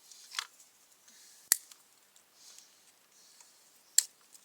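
Cutters snipping through a plastic cable tie: a soft click near the start, then sharp snaps about a second and a half in and again near the end.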